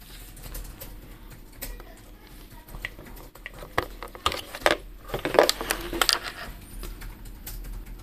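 Plastic clicks and handling noise from a handheld radio transmitter being handled, with a cluster of louder, sharper clicks between about four and six seconds in.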